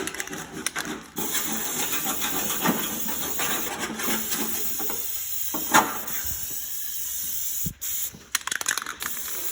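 Aerosol spray paint can hissing in one long spray of several seconds, then a few short bursts near the end, with a single knock partway through.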